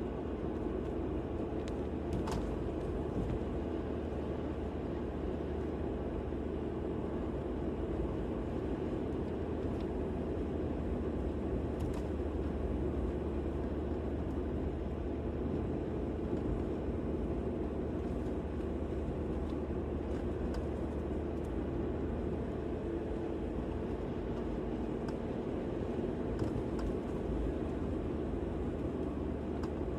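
Steady rumble of a vehicle driving along a road, engine and tyre noise, with a few faint clicks.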